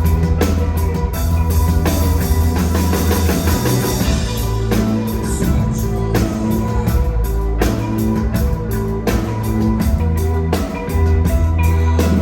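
A rock band playing loudly live: a drum kit keeping a steady beat over a strong, continuous bass line, with guitar.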